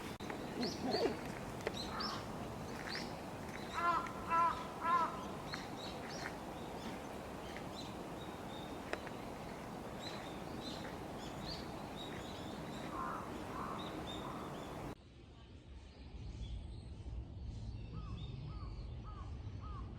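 A crow cawing three times about four seconds in, over the scattered chirps of small songbirds. After a change of scene about fifteen seconds in, a low hum sits under four short, falling bird calls.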